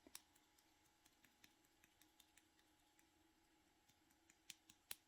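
Near silence with a few faint light clicks, two at the very start and a scattering more in the last second.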